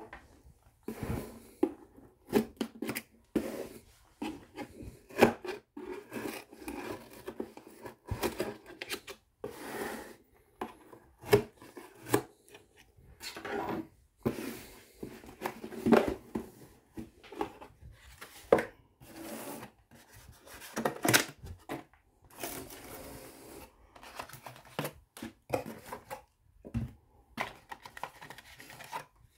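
Cardboard shipping box being opened and unpacked by hand: tearing, scraping and rustling of cardboard and packing, with irregular knocks and clicks.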